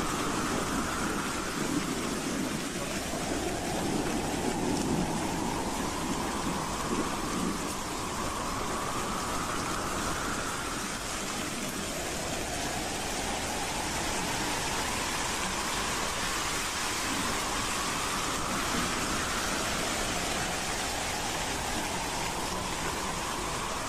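Howling wind: a steady rushing noise with a whistling tone that rises slowly over several seconds, drops back and rises again, over and over.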